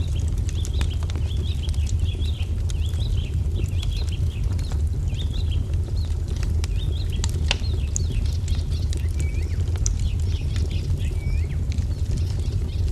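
Wood fire crackling, with a steady low rumble and frequent sharp pops, mixed with songbirds twittering in quick chirpy phrases throughout. Near the end a few short falling calls join in.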